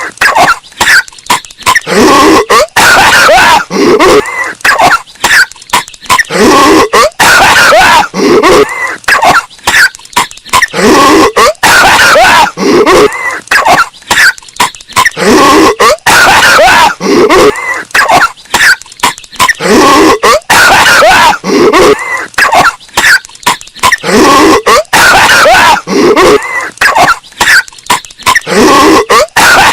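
Patrick Star's cartoon cough, looped over and over about every two seconds, bass boosted until it is very loud and heavily distorted.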